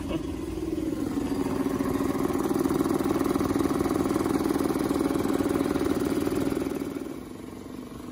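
Suzuki two-cylinder four-stroke outboard engine running steadily out of the water with no cooling water through it, the run that overheats it and logs an overheat code. Its sound drops in level near the end.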